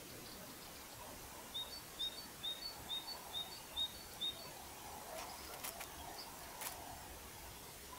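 A woodland bird calling: a run of about seven short, high chirps, about two a second, over a low hiss of background noise. A couple of sharp clicks follow a little past the middle.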